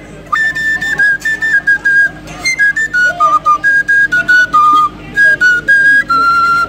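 A high, flute-like melody of short held notes that step up and down, with brief breaks between phrases.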